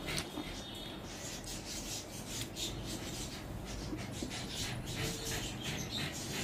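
Fingers mixing and squeezing rice on a plate by hand, making many short, soft rubbing and squishing sounds.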